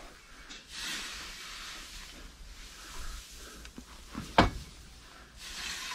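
Shovel scooping and throwing chopped straw: rustling swishes of straw, with one sharp knock about four and a half seconds in.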